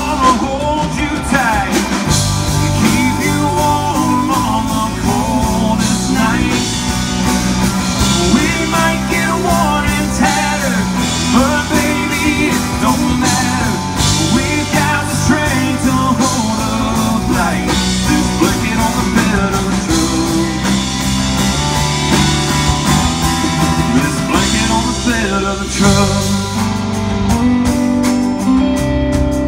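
Live band playing a song: a male singer's vocals over acoustic guitar, electric bass and drum kit.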